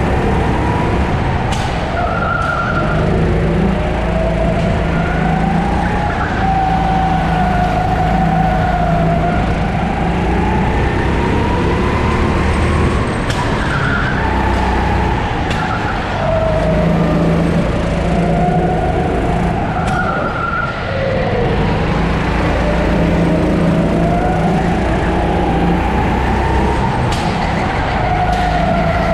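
Sodi 270cc four-stroke kart engine running under load, its revs rising and falling again and again, every few seconds, as the kart accelerates out of corners and brakes into them.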